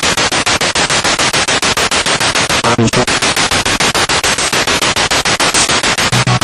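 Spirit box radio sweeping through stations: loud static cut into short bursts many times a second in a fast, even rhythm.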